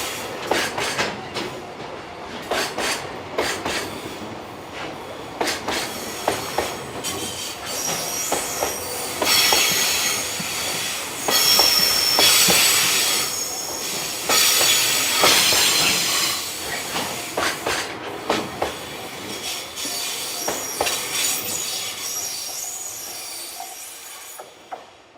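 Freight train wagons rolling past on single track, wheels clacking over rail joints, with high-pitched flange squeal from the wheels loudest around the middle. The sound fades away near the end as the train moves off.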